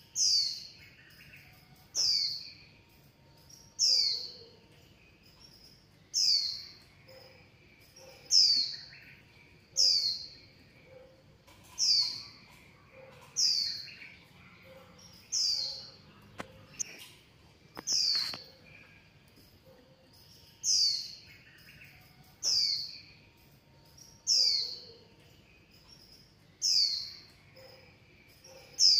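A bird-like chirp, a high note sliding downward, repeated steadily about once every two seconds.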